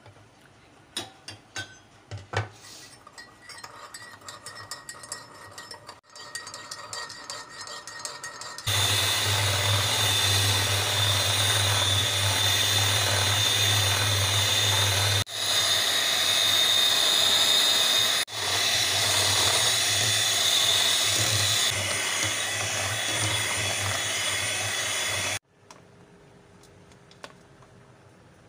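An electric mixer runs steadily for about seventeen seconds, beating chocolate cake batter in a steel bowl, with a low motor hum; it drops out briefly twice and then stops abruptly. Before it comes on there are a few clinks and scrapes of a spoon in a bowl.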